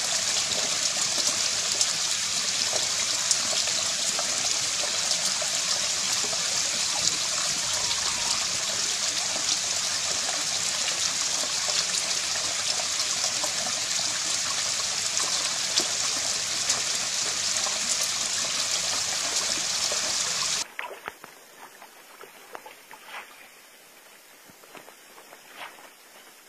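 Shallow stream water trickling and running over stones, a steady hiss. It cuts off suddenly about twenty seconds in, leaving much fainter water-side sound with a few light ticks.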